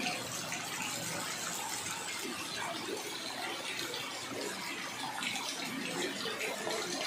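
Rain falling steadily on floodwater that covers a street.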